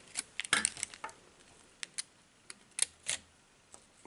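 Irregular small clicks and taps of plastic and metal as a Panasonic Walkman's circuit board is lowered onto the cassette mechanism and pressed into place, most of them in the first second.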